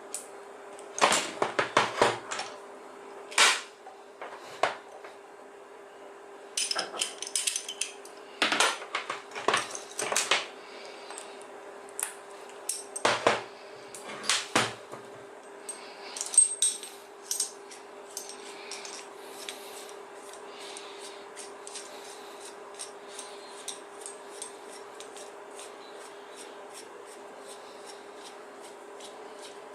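Metal tools and parts clinking and knocking in separate loud strikes, followed from about halfway by a long run of quick light clicks, about three or four a second. A faint steady hum sits underneath.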